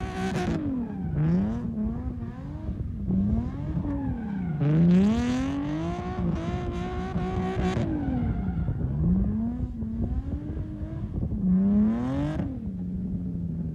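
Drift car's engine revving up and down about once a second as the car slides sideways, held high for about three seconds midway. Over that high stretch the spinning rear tyres squeal and hiss.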